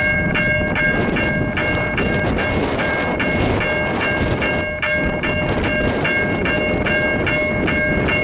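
A railroad bell dinging quickly and evenly, about two and a half strikes a second, over the steady rumble of an approaching freight train.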